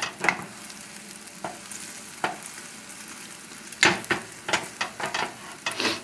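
Omelette eggs sizzling in a frying pan over a high gas flame, with a wooden spatula scraping and pushing at the eggs in short strokes: a few spaced strokes, then a quick run of them in the last two seconds.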